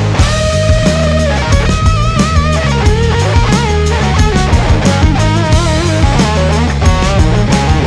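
Rock music soundtrack with electric guitar lead lines and a drum kit beat.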